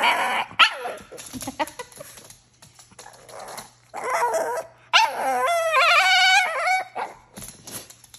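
A Shih Tzu's 'talking' vocalizations: short whining yips, then from about five seconds in one long, wavering whine-howl that lasts nearly two seconds.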